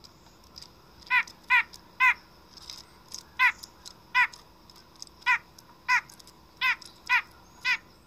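White-breasted nuthatch giving about ten short nasal 'yank' calls, spaced irregularly.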